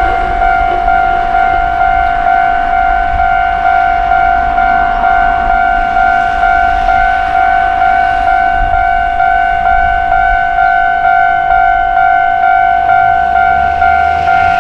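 Japanese railway level crossing warning bell ringing, the repeating "kan-kan" tone at about two strikes a second. A low rumble comes in near the end.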